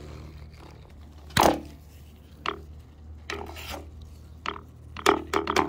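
Diagonal cutters gripping and working a broken blind rivet out of an RV awning roller tube: metal-on-metal clicks and scrapes, one sharp snap about a second and a half in and a quick run of clicks near the end, over a steady low hum.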